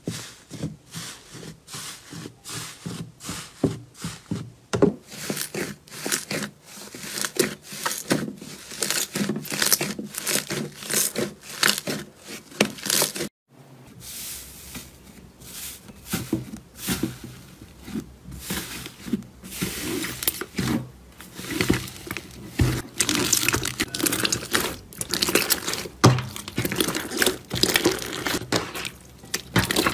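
Hands squeezing, poking and kneading thick slime, making rapid crackling clicks and squelches. The sound breaks off for a moment about thirteen seconds in, then comes back denser and louder as a second slime is pressed and squished.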